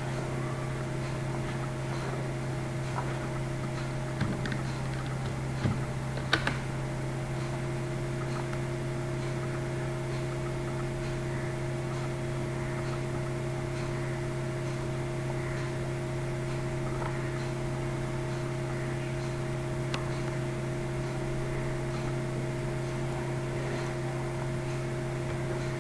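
Steady electrical hum with a few sharp clicks about four to six and a half seconds in.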